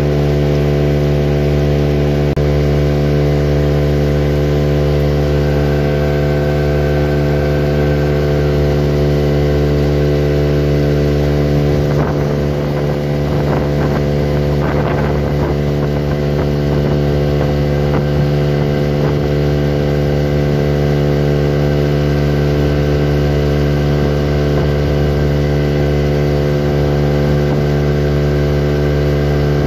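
Small motorboat's engine running at a steady cruising speed, an even unbroken drone, with a few short rushing sounds about twelve to sixteen seconds in.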